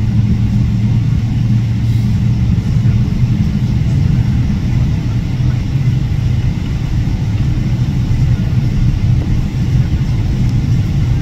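Steady low rumble inside the cabin of a Boeing 777 taxiing after landing, its engines running at low thrust.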